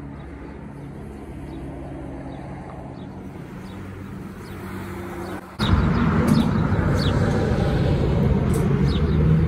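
Road traffic by a busy street: a steady engine hum, then from about five and a half seconds in a sudden, much louder rumble and rush of noise.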